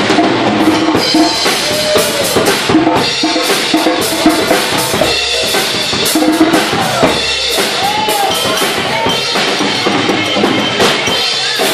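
Live drum kit playing a busy, fast rhythm, with bass drum and snare strikes among other percussion, and a few short sliding tones over the drumming.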